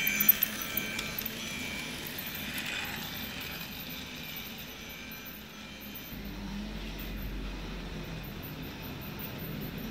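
Toy steam train set running around its plastic track, with a steady motor and wheel noise that grows as the train passes close by. High steady tones sound over it in the first couple of seconds.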